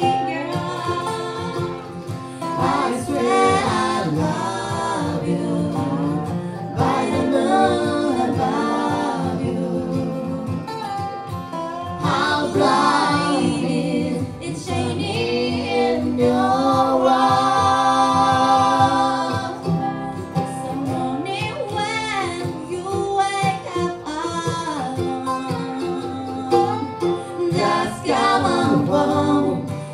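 A bluegrass band playing live with singing, on fiddle, acoustic guitar, mandolin and resonator guitar.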